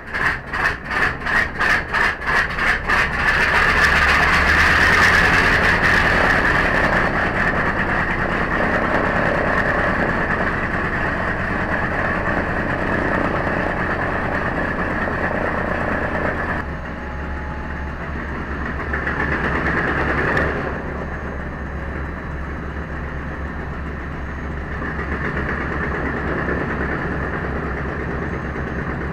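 A B-25 Mitchell's Wright R-2600 radial engine being started. The opening has a few seconds of even pulses, about four a second, as it turns over. About three and a half seconds in it catches and runs steadily and loudly. The level drops back about two-thirds of the way through.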